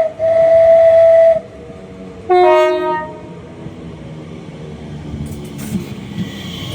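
Train horn sounding as a train passes: a brief toot, then one long steady note of about a second, and about a second later a shorter two-note blast that dips slightly in pitch. The rumble of the moving train follows.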